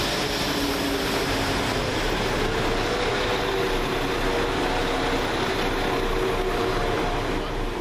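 Two coupled West Midlands Railway Class 172 diesel multiple units drawing away past the platform, their diesel engines running under power over the rumble of the wheels on the rails. The engine note climbs steadily from about three seconds in.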